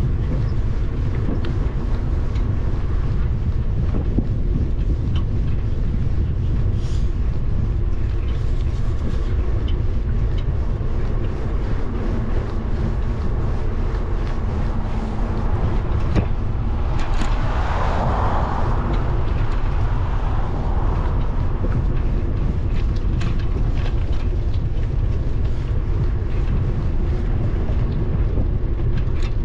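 Wind buffeting the microphone and the steady low rumble of a bicycle riding along an asphalt road, with a louder hiss that swells and fades just past the middle.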